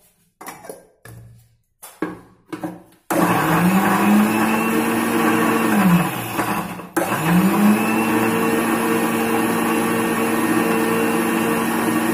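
Electric mixer grinder with a small steel chutney jar grinding beetroot pieces in water. A few knocks as the jar is set in place, then about three seconds in the motor spins up, runs steadily, winds down, and runs again for about five seconds before winding down near the end.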